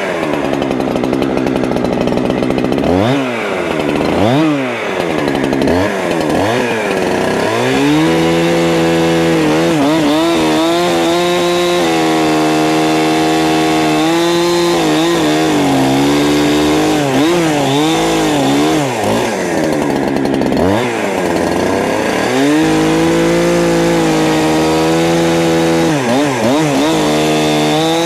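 Holzfforma G372 71cc two-stroke chainsaw revved in quick throttle blips for several seconds, then held at high revs in long stretches, its pitch sagging and recovering again and again as it cuts through cherry wood.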